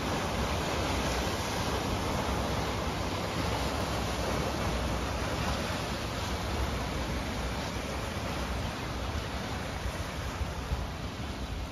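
Small waves breaking and washing over a rocky, cobbled shore: a steady, even rush of surf.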